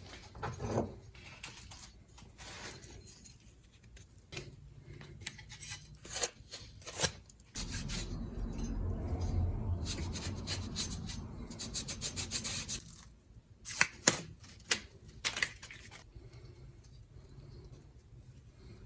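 Hands working with rubber padding: rubbing and scraping with scattered knocks and taps, as sticky-back neoprene padding is pressed into place. A low rumble runs for about five seconds in the middle.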